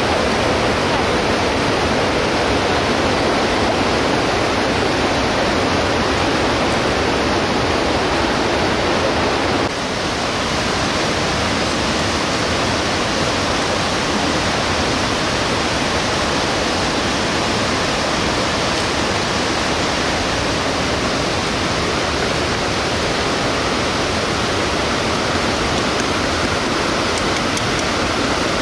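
Steady rushing of a fast mountain river, an even, continuous noise, with a slight drop in level about ten seconds in.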